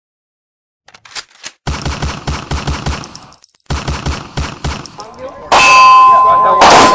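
Two strings of rapid automatic gunfire, about six or seven shots a second, with a short break between them. About five and a half seconds in comes a loud shot followed by a steady metallic ringing, and another sharp shot near the end.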